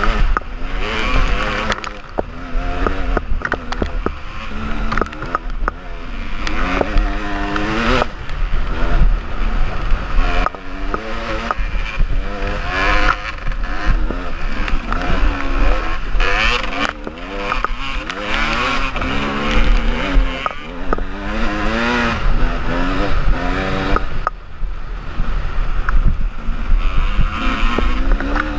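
KTM enduro motorcycle's engine revving up and down while riding, its pitch climbing and dropping again and again with throttle and gear changes. A heavy wind rumble sits under it.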